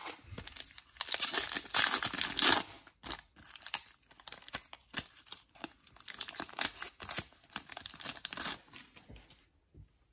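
Foil trading-card pack wrapper being torn open and crinkled by hand, a rapid run of crackling rips, loudest about a second or two in.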